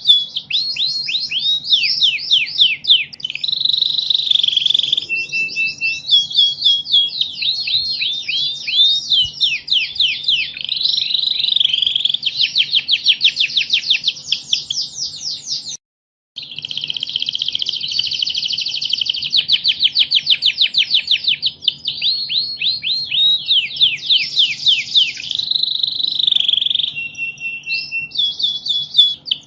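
Domestic canary singing a long, unbroken song of rapid trills and quick falling sweeps, cutting to silence for about half a second just past the middle before the song resumes. A faint steady low hum runs underneath.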